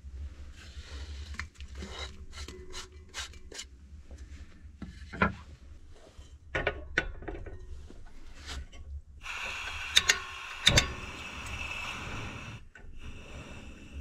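Knocks and scrapes of an aluminium pot and a wooden board being handled, then a portable butane gas stove's burner hissing as the gas is turned on, with two sharp igniter clicks a second or so later as it lights. The gas hiss goes on after it lights.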